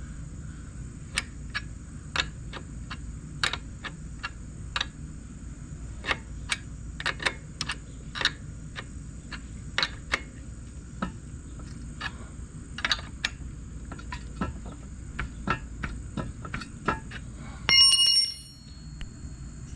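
Sharp, irregular metallic clicks of a wrench working a motor-mount bolt on a motorized bicycle, then a short ringing metal clink near the end.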